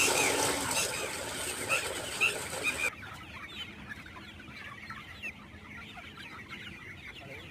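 A flock of chickens (black Australorps, Rhode Island Reds and desi hens) clucking with many short overlapping calls. A loud hiss covers the first three seconds and cuts off suddenly, leaving the clucking quieter.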